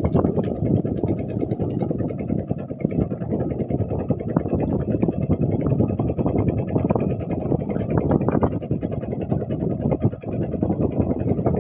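A small fishing boat's engine running steadily, a low rumble that keeps wavering in level, with faint fast ticking high above it.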